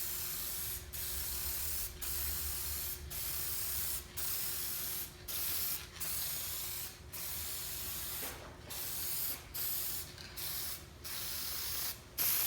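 Aerosol rattle can of ScratchWizard touch-up paint hissing in short spray passes of about a second each, with brief breaks between them, laying on a light coat.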